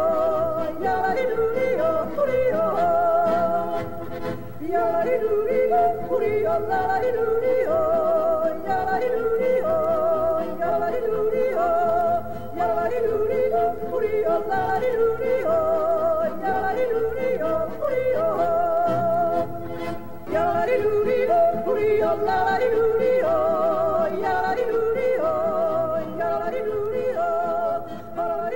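Background music: a melody with strong, wavering vibrato over a stepping bass line, playing steadily without speech.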